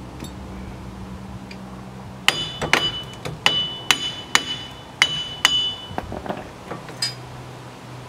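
Hammer blows on the old wheel hub assembly, knocking it out of the steering knuckle: about nine sharp, ringing metal-on-metal strikes roughly two a second, then a few lighter knocks near the end.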